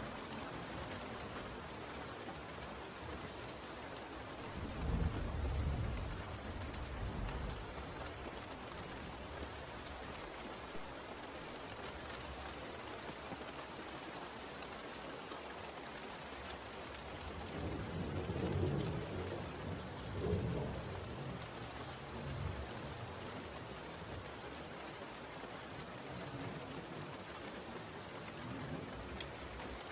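Steady rain, with low rolls of thunder twice: about five seconds in and again a little past halfway.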